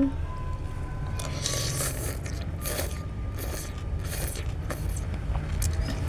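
Close-miked eating sounds: a person chewing a mouthful of chicken soto soup, a series of short wet chews a bit under a second apart, starting about a second in, over a steady low hum.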